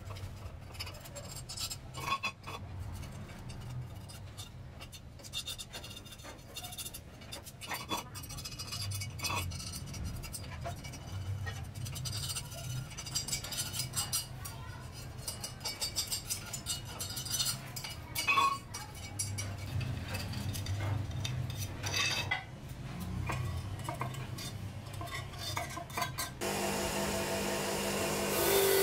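A metal scraper scraping blistered, softened paint off a cast-aluminium chainsaw motor housing, with irregular scrapes and small clinks. Near the end, a bench motor fitted with a wire wheel is heard running steadily.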